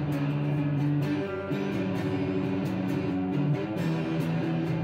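Instrumental music: an electric guitar holding low sustained notes that change about every second, over a light steady beat.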